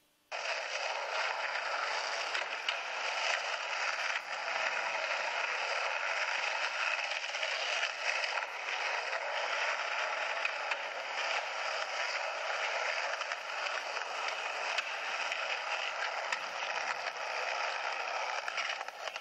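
Skateboard wheels rolling over pavement in a steady rough roar, heard thin and without bass through a camcorder's small playback speaker, with a few faint clicks.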